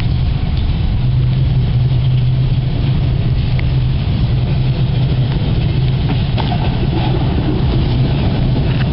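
Freight train of flat wagons loaded with shipping containers rolling slowly along the track, with a steady low drone of a diesel locomotive engine and occasional faint clicks.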